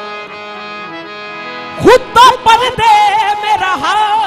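Harmonium playing sustained reedy notes; about two seconds in, a man's qawwali voice comes in loudly over it, singing a long line with quick wavering turns of pitch.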